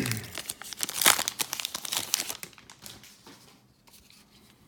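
Baseball-card pack wrapper crinkling and tearing as a new pack is opened, a dense crackle loudest in the first couple of seconds that fades out after about three seconds.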